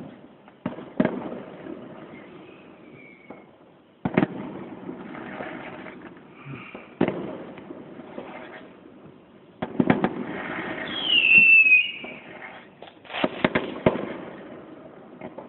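Distant fireworks going off: a series of sharp bangs a few seconds apart, each followed by crackling. About eleven seconds in, a loud whistling firework screeches with a falling pitch, and a cluster of bangs comes soon after.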